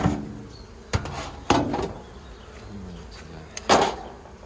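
Wooden knocks and clatter from a beehive being handled as it is opened, about four in all with the loudest near the end, over the buzzing of Buckfast honeybees.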